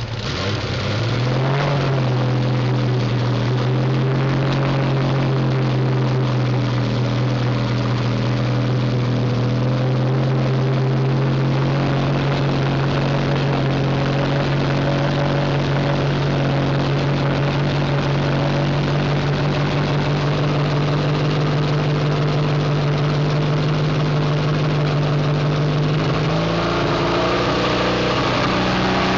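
Porsche 911's carburetted air-cooled flat-six running at a steady fast idle, heard at its tailpipe. The revs pick up about a second in and rise again near the end.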